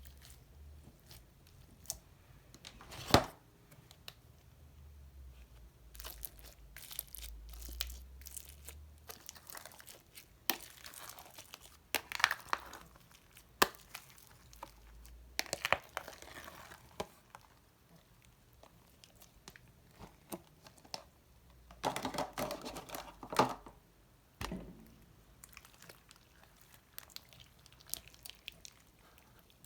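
Slime being kneaded and stretched by hand for mixing: sticky crackling and popping with irregular louder snaps, the sharpest about three seconds in and a dense burst a little past the middle.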